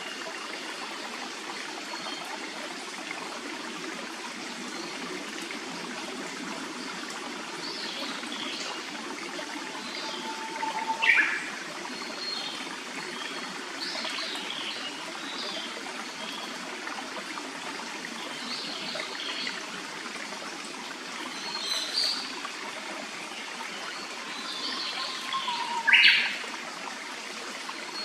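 A clear forest stream runs steadily, with birds calling over it: scattered short high calls and two louder calls, one near the middle and one near the end.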